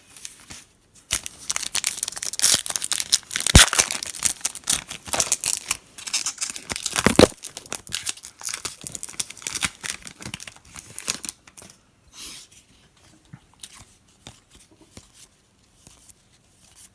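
A trading card pack wrapper being torn open and crinkled: a run of crackling tears and rustles lasting about ten seconds, then a few faint scattered clicks.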